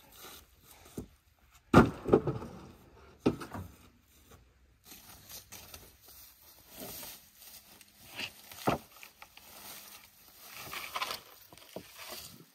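Rough-sawn wooden boards and slabs handled by hand: a few sharp wooden knocks and clatters, the loudest about two seconds in, with rustling and scraping of dry grass and leaves between.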